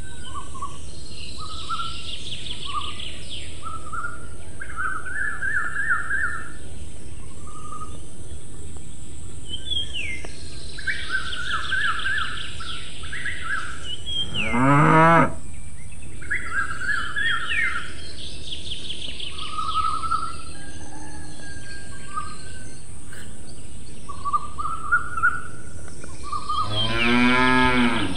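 Farm ambience: small birds chirping in short repeated trills throughout, and a cow mooing twice, once about halfway through and again near the end.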